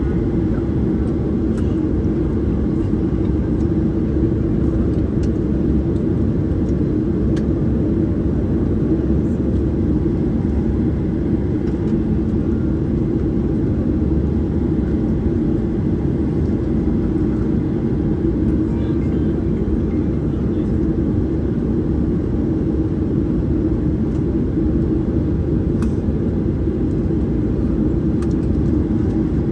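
Steady cabin noise of a Boeing 737-800 taxiing, its CFM56-7B engines at idle, with a constant hum over a low rumble.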